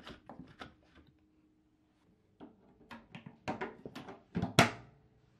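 Plastic clicks and knocks from the drain-pump filter cap being twisted into place and the plastic access cover being fitted over the filter opening of an LG front-loading washer. There is a quiet stretch in the middle, and the loudest is a sharp snap near the end.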